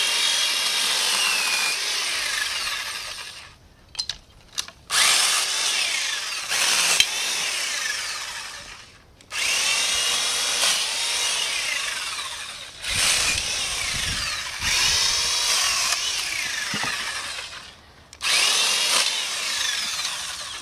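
Black & Decker Alligator electric lopper's small chainsaw running in several long bursts with short pauses between, cutting through tree limbs. Its whine glides down and back up in pitch as the chain bites into the wood.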